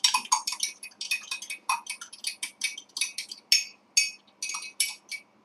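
Metal spoon stirring cornstarch in a small glass, clinking quickly and unevenly against its sides, several ringing clinks a second.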